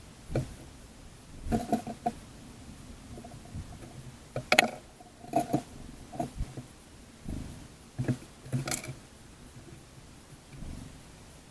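Small birds at a seed feeder close to the microphone: irregular sharp taps and knocks of beaks and feet on the feeder, some in quick clusters of two or three.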